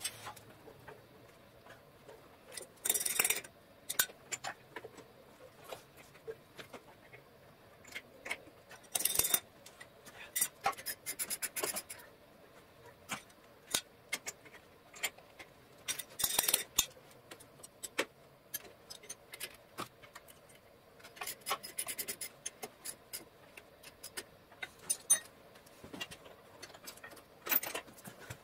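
Irregular metal clicks, taps and rattles of hand work on a PTO sheave as V-belts are lined up on it and a bolt is set through its hub, with a few louder clattering bursts scattered through.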